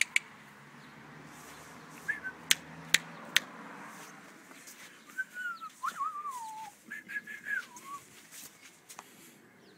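A person whistling short, wavering notes that slide down in pitch, once about two seconds in and again through the second half, with a few sharp clicks in the first half.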